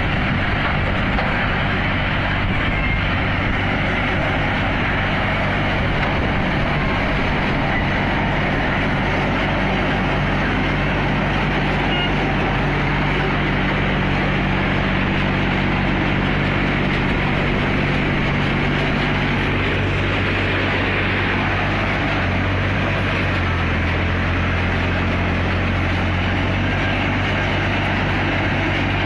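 Mini harvester driven by a 27 hp Force tractor's diesel engine, running steadily under load as it works through the crop, the engine drone mixed with the harvester's machinery noise. The engine note dips slightly about two-thirds of the way through.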